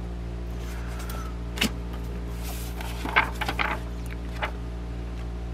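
Pages of an old bound book being turned, with sharp paper rustles and crackles about one and a half seconds in and again in a cluster around three to four seconds in, over a steady low electrical hum.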